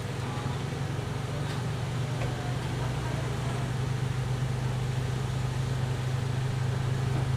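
A steady low engine hum with constant background noise, slowly getting a little louder.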